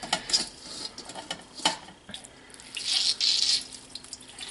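Blanched spinach squeezed by hand over a metal colander: wrung-out water splashes and drips through into the pot, with light taps of hand and fingers against the colander and a brief rush of water about three seconds in.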